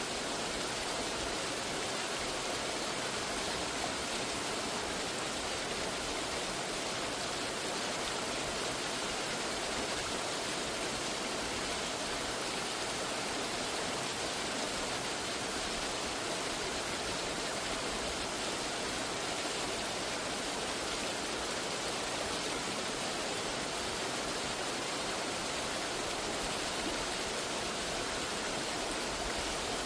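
Waterfall rushing steadily, a constant even noise with no breaks.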